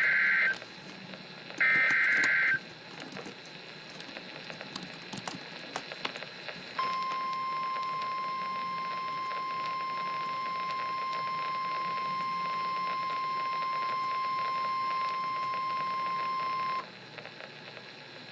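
NOAA Weather Radio Emergency Alert System signal. It opens with the end of one screeching SAME digital header burst and a second one-second burst about two seconds in. After a few seconds of radio hiss with crackles, the steady 1050 Hz warning alarm tone starts about seven seconds in, holds for ten seconds and cuts off.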